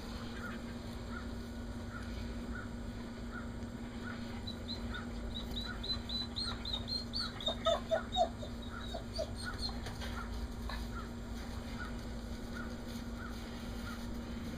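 Birds chirping: one short note repeated about every 0.7 seconds, with a fast high twittering through the middle and a few louder, lower chirps around the halfway point, over a steady low hum.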